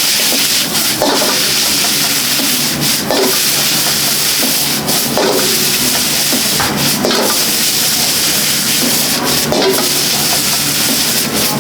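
Fried rice sizzling steadily in a wok, with a metal ladle striking and scraping the wok every second or two as it is tossed.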